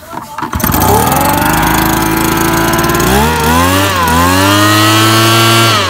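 Small two-stroke engine of a backpack mist-blower starting warm on a light pull with no priming or choke. It catches about half a second in and speeds up. Around three seconds in its speed rises and dips, then it holds at a steady high speed and starts to drop off at the very end.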